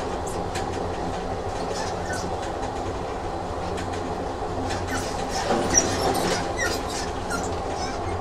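Train sound effect: a train rolling along the track, a steady rumble with scattered short clicks. It grows briefly louder a little past the middle, with one sharp click.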